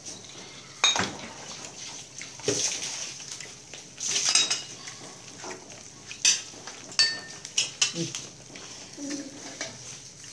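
Dishes and metal utensils clinking and knocking about eight times at irregular intervals, a couple of strikes ringing briefly, over a steady faint hiss.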